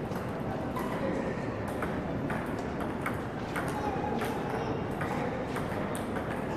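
Table tennis balls being hit by paddles and bouncing on tables: irregular sharp clicks, several a second, from more than one table, over a steady background hum.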